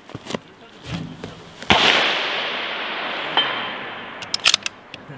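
A precision rifle shot, a sharp crack followed by a long echo that dies away over about two seconds. About a second and a half later comes a shorter sharp crack, and a few quick clicks near the end.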